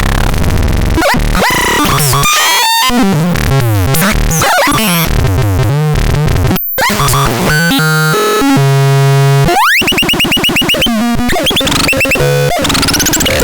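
Harsh, chaotic electronic synthesizer noise of sweeping, gliding and warbling tones. It cuts out briefly about six and a half seconds in and has a fast rising sweep a few seconds later, followed by rapid pulsing.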